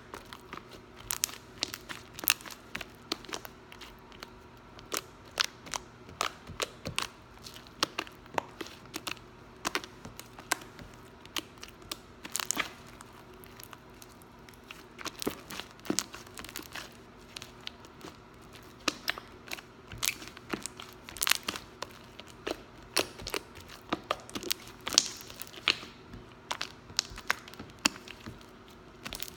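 Hands squishing, pressing and stretching homemade slime, making many irregular sharp pops, clicks and crackles.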